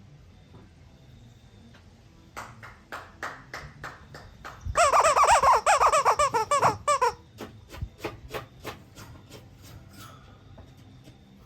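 Squishy squeaky toy being squeezed over and over by an eclectus parrot's beak. The squeaks come about three a second, then run into a fast, loud string with a wavering pitch, then thin out and stop.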